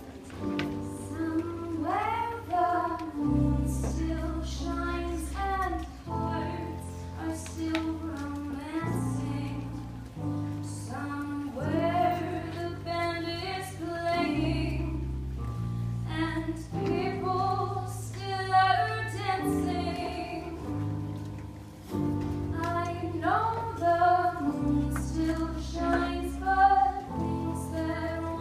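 A young woman singing a song into a handheld microphone, her voice wavering with vibrato, with a band accompanying her on held low notes that change every couple of seconds.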